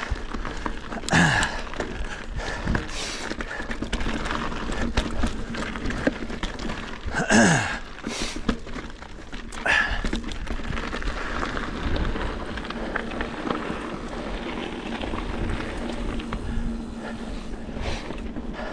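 Mountain bike riding over a rough dirt and rock trail: steady tyre noise and rumble with many small knocks and rattles from the bike, and the rider breathing hard after a climb, with loud falling exhales about a second in and around seven seconds in.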